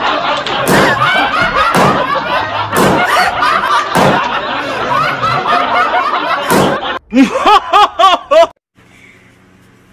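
A group of people laughing and shouting while balloons pop now and then as they are squeezed between bodies. About seven seconds in this gives way to a white cat's quick run of about seven loud meows, each rising and falling in pitch, which stop abruptly.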